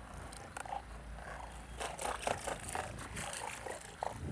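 Muddy, soapy water sloshing and splashing in a plastic bucket as a plastic toy rifle is scrubbed in it by hand, in many short, irregular splashes.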